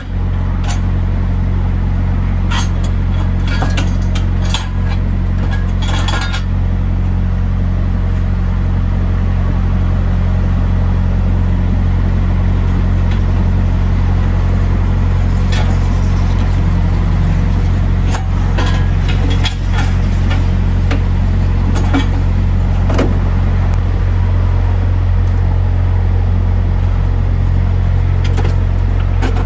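Steady low drone of an engine idling close by, with scattered clanks and knocks as heavy truck batteries are worked loose and pulled from the battery box.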